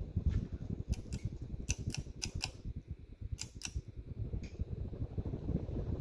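Hunter Original ceiling fan running, just switched up to high speed, its blades moving air as a steady low rumble. A scattering of light clicks comes in the first few seconds.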